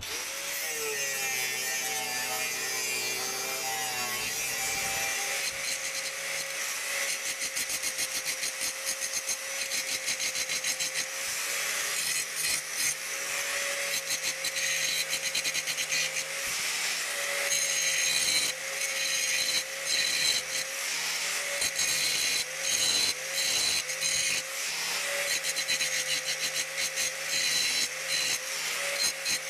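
Angle grinder spinning up, then grinding a steel knife blank to its outline. A steady motor whine runs under a harsh grinding hiss that keeps cutting out and coming back as the disc is pressed into the steel and eased off.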